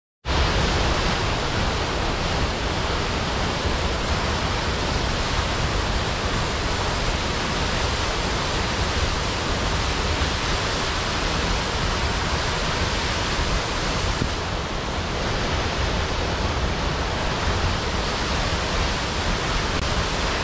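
Steady, unbroken rush of a large waterfall, water crashing onto rocks with no change in level.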